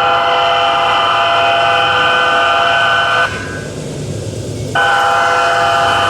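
Automatic wayside train horn sounding a multi-tone chord to warn of an approaching train: one long blast of about three seconds, a pause of about a second and a half, then a second long blast that carries on. A low rumble runs beneath.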